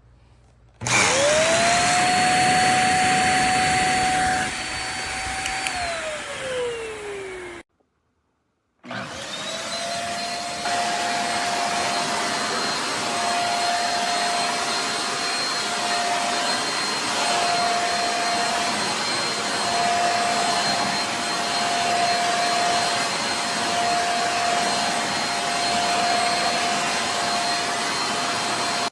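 Handheld bed vacuum cleaner's motor switched on and running with a steady high whine. About six seconds in it is switched off and winds down with falling pitch. After a short silence it runs again steadily.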